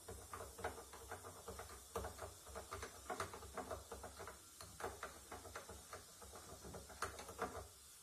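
A metal spoon stirring a baking soda and vinegar mixture in a small glass jug, clinking against the glass in quick, irregular faint clicks, several a second. The clicking stops shortly before the end.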